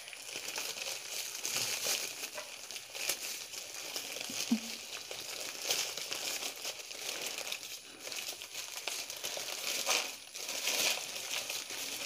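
Thin plastic bags of sugar rustling and crinkling irregularly as hands pick at and untie their knotted necks.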